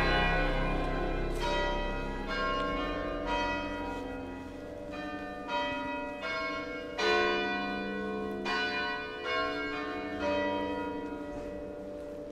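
Bells ringing: a series of struck notes at uneven intervals, each ringing on and fading, the whole dying away gradually toward the end.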